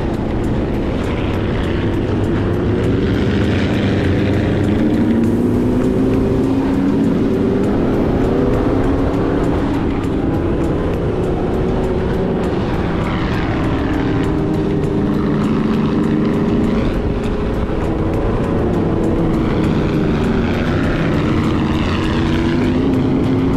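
Sand rail engine running hard, revving up and falling back again and again as the throttle is worked over the dunes.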